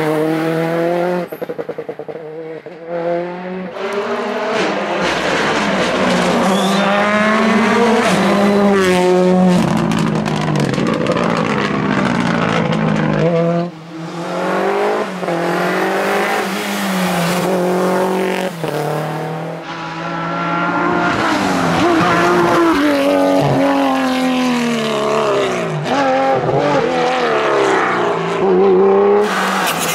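Rally cars driven at full attack, engines revving hard, their pitch climbing and dropping again and again through gear changes and lifts, with some tyre squeal.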